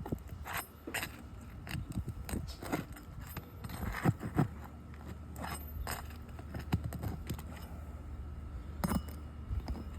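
Metal roofing tools clinking, knocking and scraping on asphalt shingles in irregular sharp clicks, as an old shingle is worked loose and pulled out.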